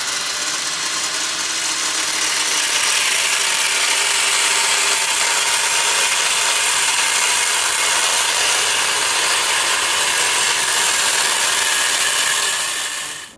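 Electric angle grinder running with its disc ground hard against steel, a steady high-pitched grinding hiss that grows louder about two seconds in and cuts off just before the end.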